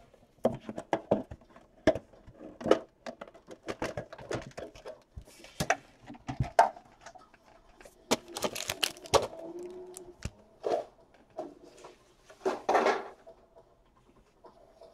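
Hands handling a trading card box and a foil-wrapped card pack: a string of sharp taps and knocks, with a few short crinkly rustles, the strongest about two-thirds of the way through.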